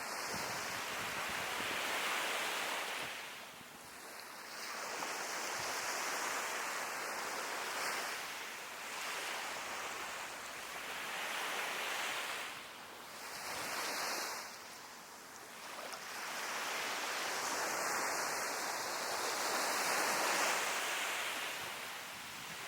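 Sea waves breaking on the shore in slow surges, each wash of surf rising and falling away over a few seconds.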